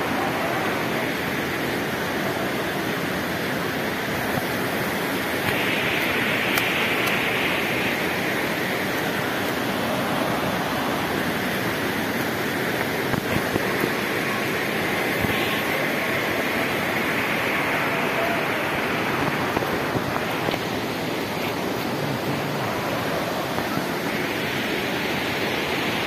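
Steady rush of falling and flowing water, an even roar with a higher hiss that swells and fades a few times.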